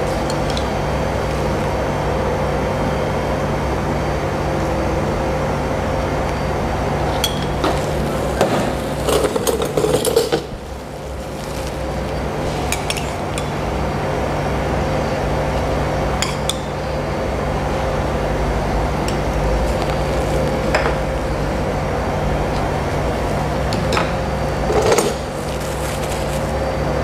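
Metal spoons clinking and scraping against small ceramic sauce dishes and a bowl, a few scattered clinks with two busier clusters, over a steady low hum.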